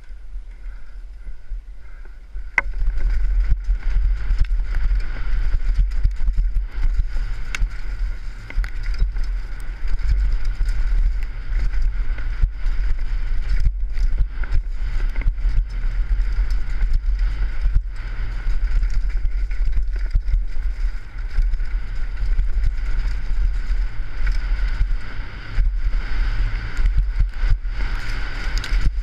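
Mountain bike descending a rough dirt downhill trail, heard through a helmet-mounted GoPro: heavy wind rumble on the microphone with tyre noise and a dense run of rattling knocks from the bike. It gets louder about two and a half seconds in as the speed picks up.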